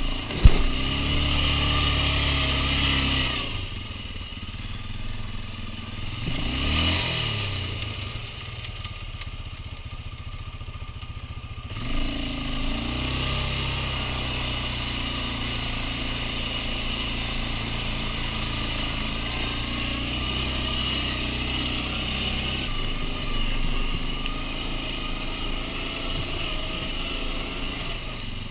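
Quad bike (ATV) engine running under way, with a sharp knock right at the start. It revs hard for the first few seconds, swells up and back down once about seven seconds in, then settles into a steady, louder run for about ten seconds before easing off near the end.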